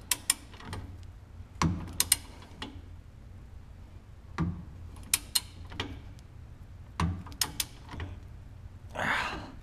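Hand tools working bolts under a pickup truck: sharp metal clicks and clinks from a wrench and ratchet, coming in short irregular clusters rather than a steady ratcheting run. A brief rushing swish comes near the end.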